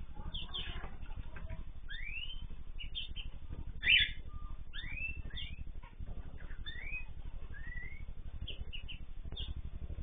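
Aviary of mixed cage birds calling: repeated short rising whistled calls and quick chirps, with one louder call about four seconds in, over a steady low hum.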